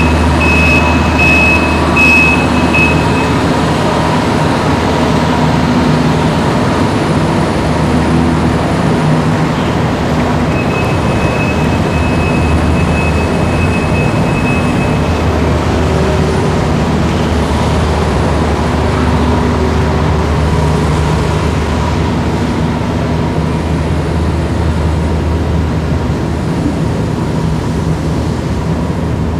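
Escalator running: a steady low mechanical hum and rumble, with a thin high whine that comes in near the start and again for a few seconds midway.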